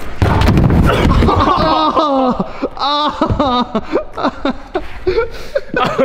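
A dirt jump bike and its rider crash onto a plywood ramp with heavy thuds and rattling during the first second. After that the fallen rider groans and cries out in pain; the fall has landed him on his elbow.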